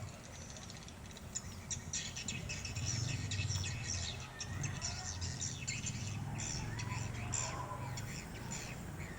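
Many swiftlets twittering, a dense stream of rapid high chirps, over a steady low rumble.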